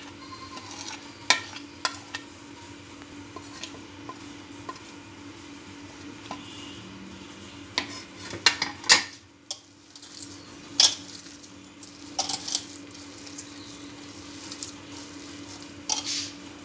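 A metal spoon clinking and tapping against a bowl at irregular moments as chopped chillies, onion, ginger and spices are tipped onto grated boiled potato. A steady low hum sits underneath.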